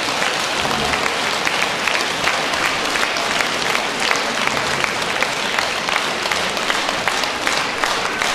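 A large audience applauding steadily: a dense, even patter of many hands clapping.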